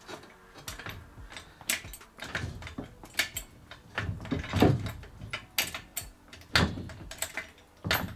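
Clunks, knocks and clicks as a Mercury 50 hp outboard motor is rocked and shifted by hand on its wooden mount, with a few heavier thumps in the second half.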